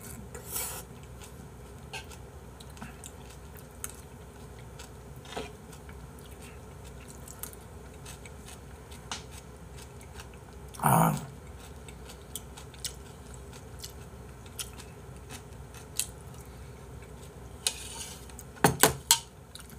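Spoon clinking against a bowl and quiet chewing while eating abalone rice porridge. There is a louder knock about eleven seconds in and a quick run of sharp clacks near the end, as the bowl is set down.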